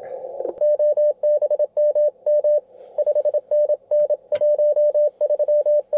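Morse code (CW) from an Icom IC-7100M transceiver: one steady tone keyed quickly in dots and dashes, in groups with short pauses. It is the rig's sidetone as a CW transmission is sent. A single sharp click sounds a little over four seconds in.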